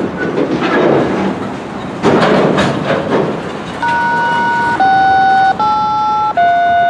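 Freight train of flatcars loaded with rail rolling slowly past, its wheels rumbling and clattering. From about four seconds in comes a loud squeal that jumps between four pitches, roughly once a second.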